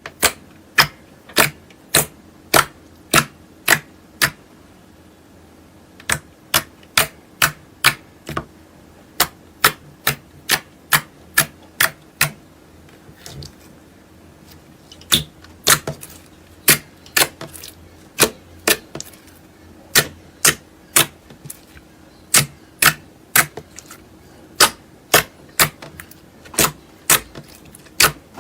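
Slime being pressed and worked by hand, letting out sharp clicking pops about twice a second, with two short pauses.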